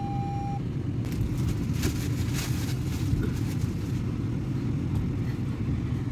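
Low, steady rumble of a car heard from inside its cabin. A held tone cuts off just after the start, and a faint crackling comes through between about one and three seconds in.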